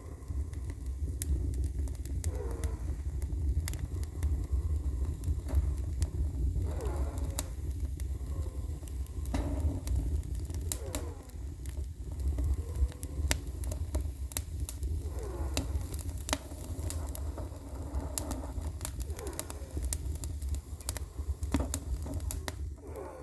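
Wood fire burning in a homemade gas-cylinder stove: a steady low rumble with frequent sharp crackles, and a soft sound that rises and falls every three to four seconds.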